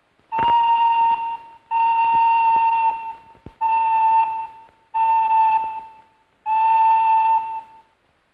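A whistle blowing five blasts of about a second each at one steady pitch, with short gaps between them.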